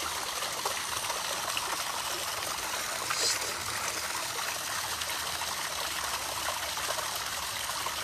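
Steady rushing of flowing water, like a stream, with a brief higher hiss about three seconds in.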